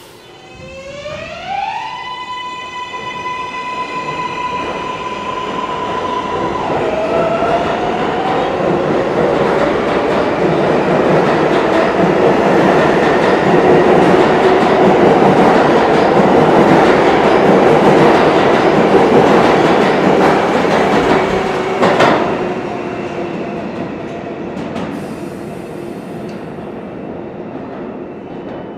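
A 7 subway train pulling out of the station. Its motors whine up in pitch over the first couple of seconds as it starts to accelerate, then the rumble and clatter of the cars passing build to their loudest about halfway through. A single sharp crack comes about two-thirds of the way in, and the sound fades as the train goes into the tunnel.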